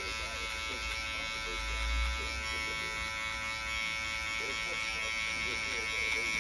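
Gamma+ Rebel hair clipper, fitted with a guard, running with a steady high buzz as it cuts a fade along the side of the head. A brief low bump comes about two seconds in.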